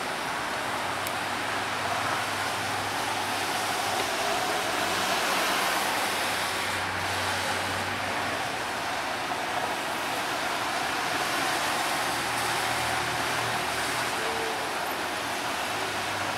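Steady road traffic noise: a continuous wash of passing cars.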